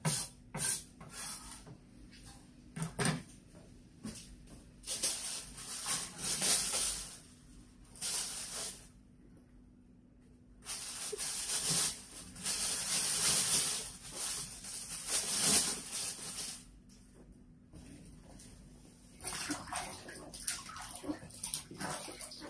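A cleaver chops a few times on a wooden cutting board, then a thin plastic produce bag rustles and crackles at length in two long stretches as green peppers are handled in and out of it.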